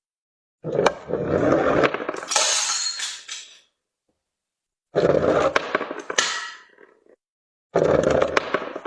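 Small brittle objects being crushed and breaking apart, cracking and clinking, in three separate bursts with dead silence between them.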